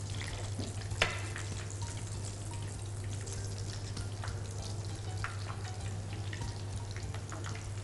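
Rolled phyllo cheese börek frying in a pan of hot oil, a steady sizzle and bubble. One sharp click comes about a second in, with a few fainter ticks later.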